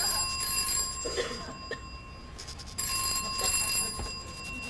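Telephone ringing: a steady electronic ring in long bursts, with a short break a little over halfway through.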